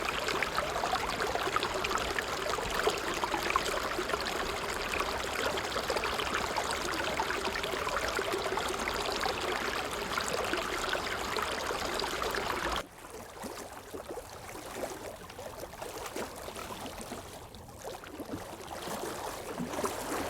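Running, bubbling water: a steady crackling rush that cuts off abruptly about thirteen seconds in, leaving a much quieter ambience.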